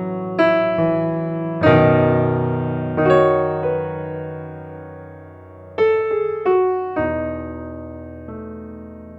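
Slow, gentle piano music: single notes and soft chords struck every second or so, each left to ring and fade.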